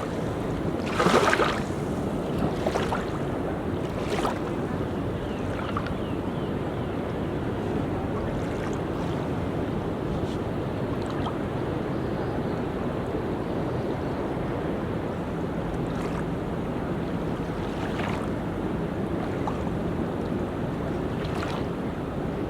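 Ocean surf washing onto a beach: a steady rush of waves with a few sharper splashes as waves break, the loudest about a second in.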